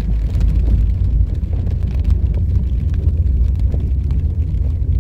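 Car driving over a wet cobblestone street, heard from inside the cabin: a steady low tyre and road rumble with a rapid rough flutter, and faint ticks of rain on the car.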